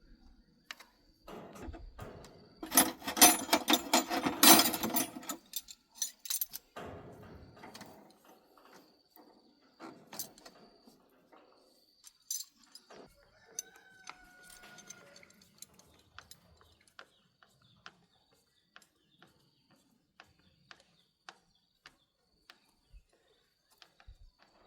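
Metal tools and parts clinking and rattling as they are handled, a dense jangling burst a few seconds in, then scattered light clicks and knocks.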